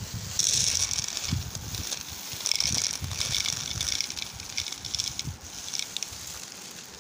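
Small hard sugar-coated candy balls poured from a plastic bag onto a steel tray: a rattling patter of sweets hitting metal and each other, mixed with the crinkle of the plastic bag. It starts about half a second in and tails off near the end.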